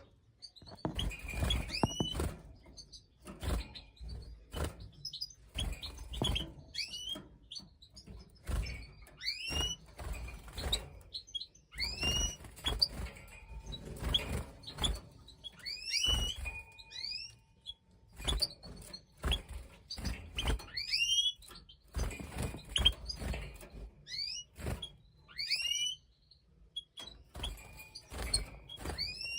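Goldfinches calling with short rising chirps, often two or three in quick succession, through repeated soft knocks and thuds.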